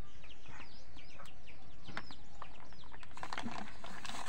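Small birds chirping over and over in short downward-sliding notes, with scattered light clicks and a brief rustling crackle about three seconds in.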